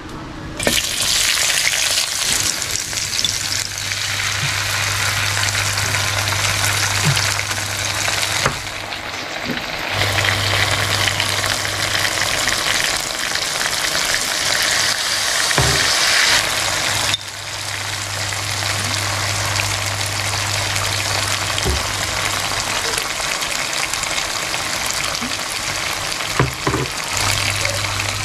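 Food frying in hot oil in a pan: a steady, dense sizzle over a low hum. The sizzle jumps in level a couple of times, as between shots.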